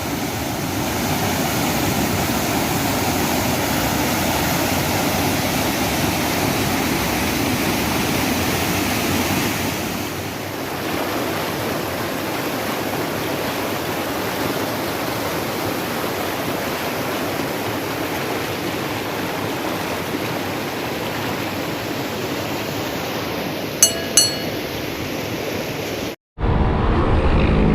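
Waterfall rushing steadily, its sound shifting slightly about ten seconds in, with two short ringing clinks near the end. After an abrupt cut, a small motorcycle engine is heard running.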